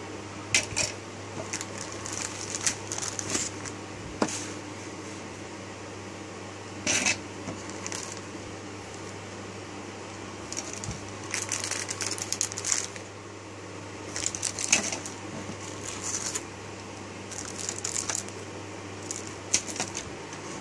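Plastic parts bags and sprues of a Tamiya Mini 4WD kit crinkling and rustling in short, irregular bursts as they are handled in the box, over a steady low hum.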